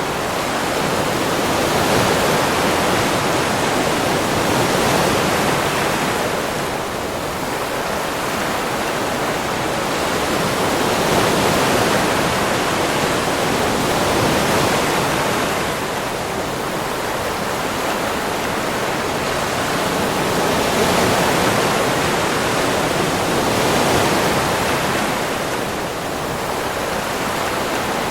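Ocean waves breaking and washing on a beach: a continuous rush of surf that swells and eases every few seconds.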